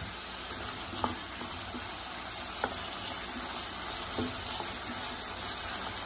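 Chopped vegetables sizzling in coconut oil in a frying pan while being stirred with a wooden spoon, with a few faint clicks of the spoon on the pan.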